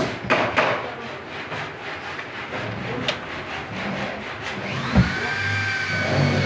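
Wooden drawer running in and out on metal ball-bearing drawer slides, the slides rattling and clicking, then shutting with a sharp knock about five seconds in. Near the end a motor's whine rises in pitch and holds.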